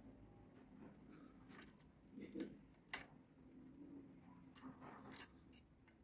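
Faint metallic clicks and light scraping of a lock pick working inside the cylinder of a cross-keyway garage lock, with a sharper click about three seconds in.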